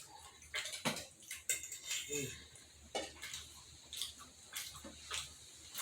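Close-up eating sounds of a person chewing deep-fried New York strip steak: irregular wet mouth smacks and clicks, a few each second, with a brief low hum about two seconds in.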